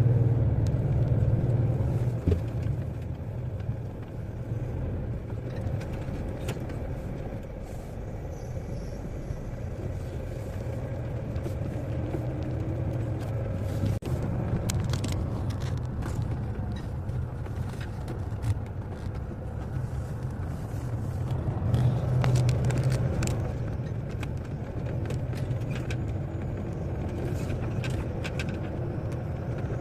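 Lorry's diesel engine running with a steady low drone, heard from the cab, swelling a little about twenty seconds in, with scattered light clicks and rattles.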